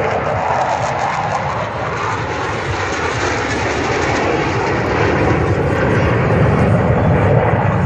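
Jet engine noise from military jets flying low overhead: a steady, loud rushing sound that eases slightly and then builds again toward the end.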